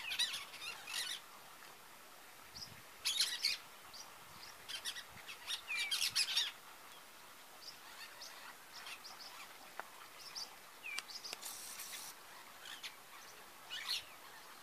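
Cactus parakeets calling in short bursts of harsh, scratchy notes, several bouts a few seconds apart.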